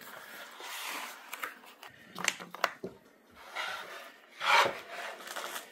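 Wooden mancala board being slid out of its cardboard box and handled on a wooden table: rubbing and scraping, with a few light knocks.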